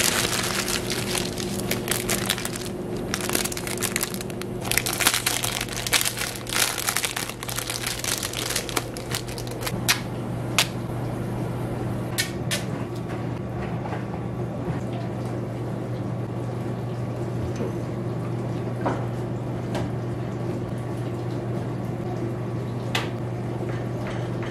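Plastic packaging crinkling and crackling as a padded mailer and its contents are opened, then scattered sharp clicks and taps as plastic child-safety locks are fitted to an oven door. A steady low hum runs underneath.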